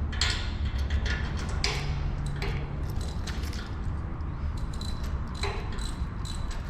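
Light metallic clicks and scrapes as the timing chain and cylinder of a Yamaha FZ 2.0 motorcycle engine are handled during reassembly. A steady low hum lies underneath.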